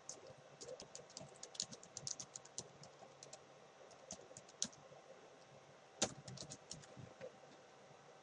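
Typing on a computer keyboard: irregular runs of quick key clicks, with one louder keystroke about six seconds in.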